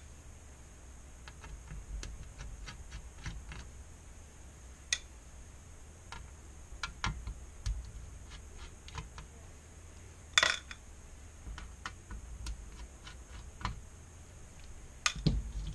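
Scattered light clicks and ticks of a small screwdriver, screws and metal parts on the aluminium backlight frame of an LCD panel, as the screws holding the lamp reflectors are taken out. A sharper click comes about ten seconds in.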